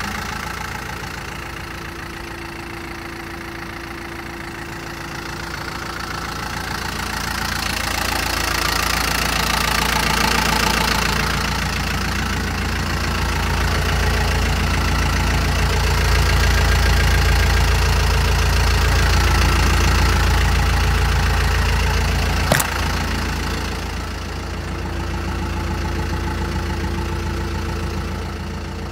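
Toyota Dyna truck's engine idling steadily, growing louder in the middle of the stretch as it is heard close to the exhaust muffler and tailpipe, then easing off. A single sharp click about two-thirds of the way through.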